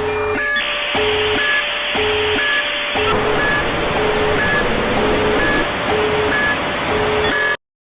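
Emergency alert alarm recording: a repeating electronic beep pattern, low and high beeps alternating about once a second over a steady tone. A harsh static hiss comes in early and grows thicker about three seconds in. The whole sound cuts off abruptly near the end.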